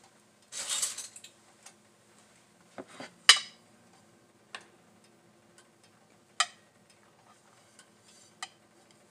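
A ceramic plate being handled on the countertop: a short scraping slide about a second in, then several sharp clinks of plate and cutlery, the loudest about three seconds in.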